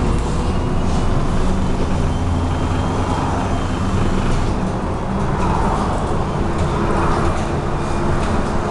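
MAZ-107 city bus moving along a street, heard from inside the passenger cabin: steady diesel engine drone mixed with road noise.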